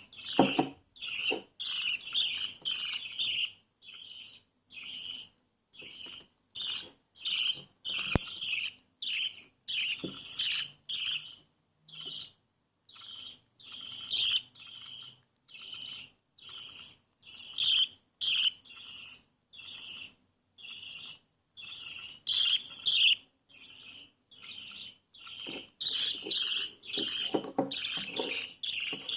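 Baby budgerigar's raspy begging calls while being fed, short high chirps repeated about twice a second.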